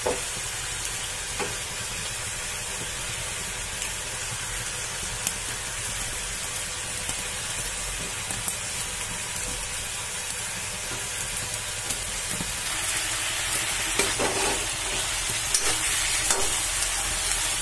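Steady sizzling hiss of cooking on a gas stove. In the last few seconds the sizzling grows louder, with a spoon scraping and stirring chicken pieces in a kadai a few times.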